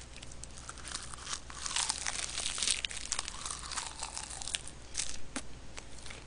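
Crisp crackling and crunching of roasted laver (gim) wrapped around rice, bitten and chewed close to the microphone, busiest in the middle with a few sharp clicks near the end.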